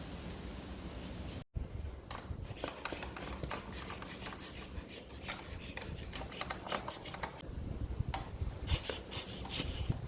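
Rubbing strokes from dust being cleaned off the casing of a Shaiko WS-930P cassette boombox. The strokes come in quick runs after a brief gap in the sound about a second and a half in, pause a little after the middle, then start again near the end.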